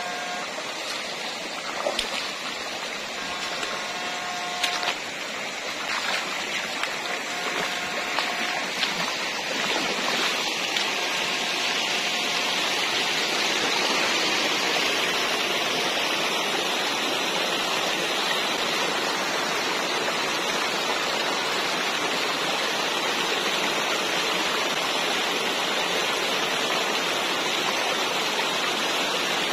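Shallow rocky stream rushing steadily over stones, growing a little louder over the first half.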